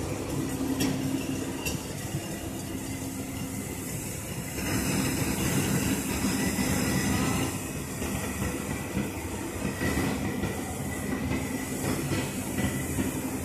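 Airport ground power unit running, a steady engine drone with a low hum and a hiss on top, swelling louder for a few seconds in the middle.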